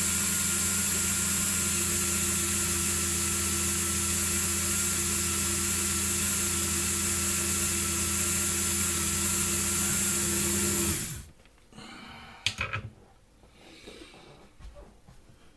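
Dremel rotary tool running steadily at constant speed while polishing small protractor parts, then switched off about 11 seconds in and quickly winding down. A few light clicks and handling sounds follow.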